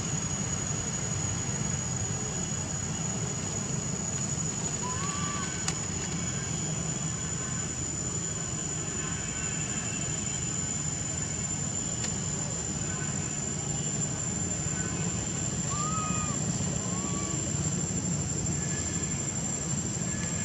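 Steady outdoor background hum with a constant high-pitched insect whine, and a few faint, short rise-and-fall coos from an infant macaque: once about five seconds in and twice around sixteen seconds in.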